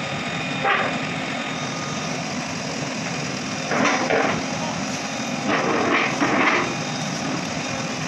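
JCB backhoe loader's diesel engine running steadily as the backhoe arm drags a long load off a truck bed. Short bursts of scraping come about a second in, around four seconds in, and again between five and a half and six and a half seconds.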